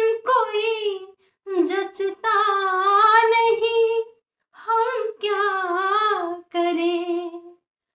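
A woman singing a Hindi film song unaccompanied, in long held phrases broken by short pauses for breath.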